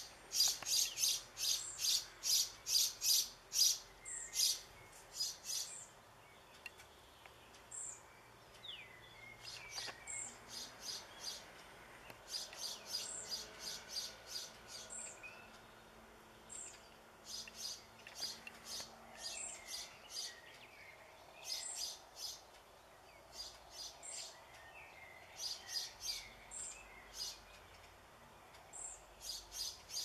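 Fledgling European pied flycatcher calling for a parent. Its short, high-pitched calls come about three a second, loudest in the first few seconds, then return in shorter, quieter bouts.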